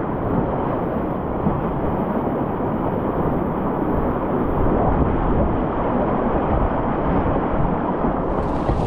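Whitewater rapids rushing steadily around a kayak, with a brief, sharper burst of splashing near the end.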